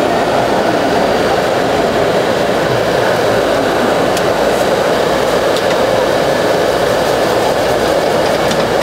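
Steady, loud background din of a busy street-food stall: a dense, even noise with no distinct events. A couple of faint light clicks come through about four and five and a half seconds in.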